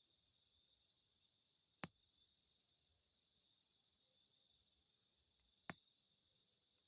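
Faint chorus of crickets trilling steadily, with two sharp clicks about two and six seconds in.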